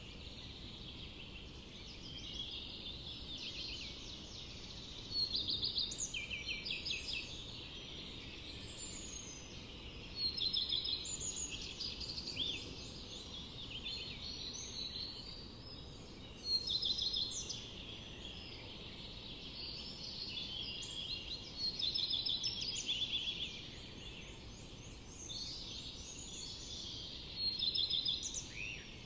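Birds singing in a forest: a chorus of short chirps and quick trills, with a louder song phrase about every five to six seconds, over a steady low background hush.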